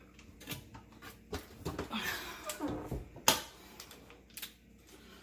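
Scattered small clicks, taps and scrapes of a screwdriver turning a short screw into a dishwasher's plastic pump housing, with one sharp click a little over three seconds in.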